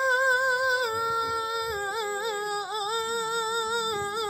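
A man singing one long held note of an unaccompanied Arabic religious praise poem. The note wavers in small ornaments and steps down a little about a second in.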